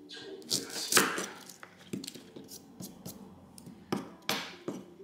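Kitchen knife chopping green onions on a wooden cutting board: a string of uneven knocks of the blade striking the board, about two a second.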